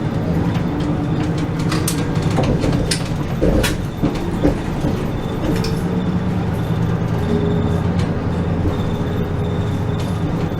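Bus cabin on the move: the engine drones steadily, with scattered clicks and rattles from the bodywork.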